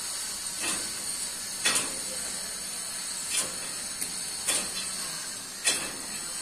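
Sharp knocks from demolition work on a reinforced-concrete slab: six of them at uneven intervals of about a second, each ringing briefly, over a steady hiss.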